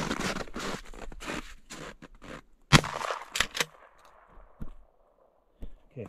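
Rustling and scraping, then a single rifle shot nearly three seconds in, its echo trailing off over the next couple of seconds.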